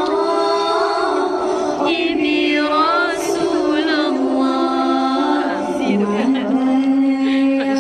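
Voices singing a slow chant, holding long notes that step from one pitch to another, with a few wavering phrases about three seconds in.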